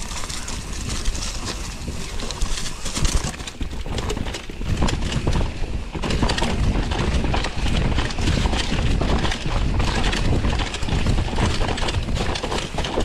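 Mountain bike riding over a rough dirt trail: a continuous clatter of tyres over stones and the bike rattling, with a steady low rumble of wind on the microphone.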